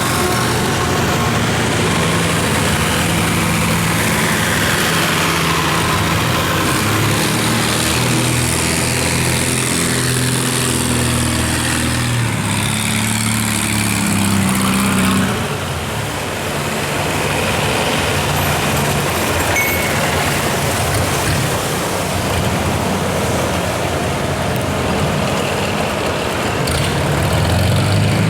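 Longtail boat engine running hard at speed, a loud steady engine drone whose pitch shifts a few times, dipping briefly about halfway through.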